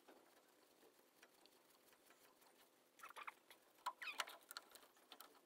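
Near silence broken from about three seconds in by faint short metallic squeaks and clicks from a jawed gear puller whose centre bolt is being wound in against a Land Rover 2.25 engine's crankshaft pulley.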